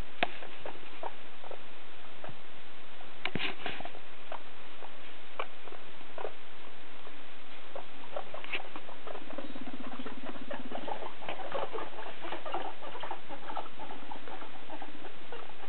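Guinea pigs moving about on hay in a wire cage, making scattered rustles, light footfalls and clicks. About nine seconds in there is a low buzzing sound lasting about a second and a half.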